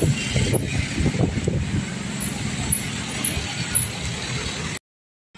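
Busy street traffic: motorcycle and jeepney engines running as they pass, a steady low hum under the noise, with passersby's voices in the first second or two. The sound cuts out abruptly near the end.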